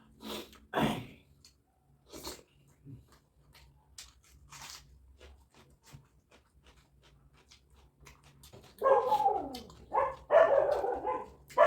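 Eating sounds of chewing and mouth clicks while chicken momo dumplings are eaten. About nine seconds in, a dog gives several loud barks and whines, some falling in pitch.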